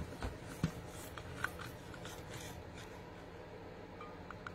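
Faint rustling and rubbing of patterned paper being handled and slid, with a few small ticks in the first second or so.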